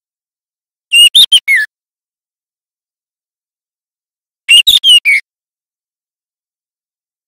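Juvenile white-rumped shama singing, a young bird still learning its song: two short phrases of three or four quick sliding notes, about a second in and again about four and a half seconds in.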